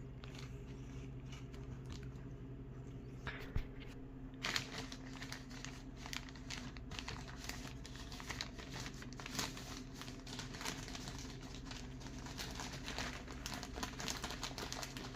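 Plastic sheeting crinkling as it is handled, in quick irregular crackles starting about four and a half seconds in, over a steady low hum.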